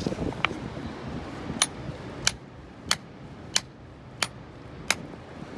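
Hammer tapping a metal chisel into rock while chipping a fossil out: six sharp, evenly spaced metallic taps about two-thirds of a second apart, after a lighter tap at the start.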